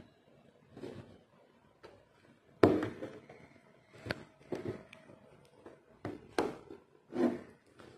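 Aari hook needle punching through fabric stretched taut on an embroidery frame while stitching on sequins: irregular short taps and soft thumps, about half a dozen, the loudest about two and a half seconds in.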